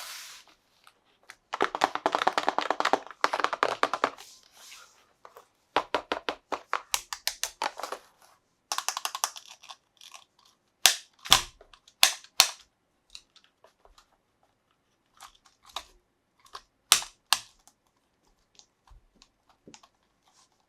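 Unboxing handling of a toy's packaging. For about the first ten seconds there are runs of rapid, scratchy clicking, then a handful of sharp single clicks and taps with quiet gaps in between.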